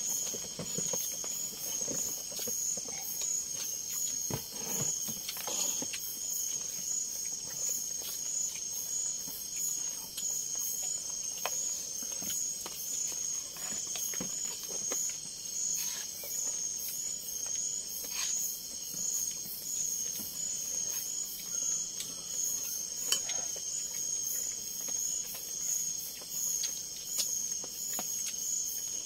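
A chorus of night insects such as crickets, a high pulsing trill that keeps on without a break. A few faint clicks and knocks fall here and there, one of them a little louder about three-quarters of the way through.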